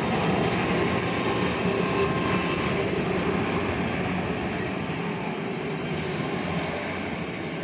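Helicopter flying overhead: a steady high whine over a rushing engine and rotor noise, slowly fading as it moves away.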